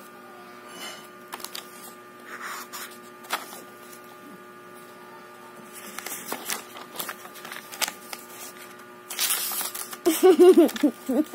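Paper pages of a sketchbook being handled and turned, with soft rustles and clicks and a louder rustle of a page turning near the end, over a steady electrical hum. A short high voice sound follows right after the page turn.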